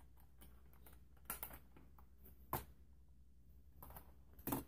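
Quiet room with a handful of light clicks and taps: small plastic makeup items being handled while a lipstick is searched for.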